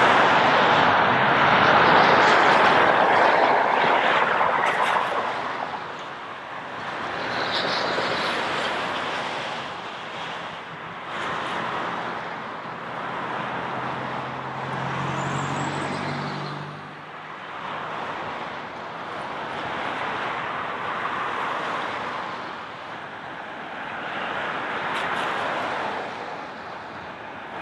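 Boeing 747 jet engines at takeoff power, a loud roar that is strongest in the first few seconds, then lower, swelling and fading as the aircraft moves away. A low droning tone comes in briefly around the middle.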